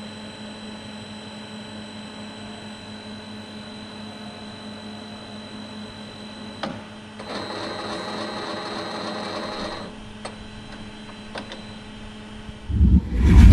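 Colchester Tornado T4 CNC lathe with its MBF1000 magazine barfeed standing under power, giving a steady hum with a thin high tone. About seven seconds in, a click is followed by a louder mechanical whirring for a couple of seconds, then a few single clicks. Near the end a loud whoosh swells up.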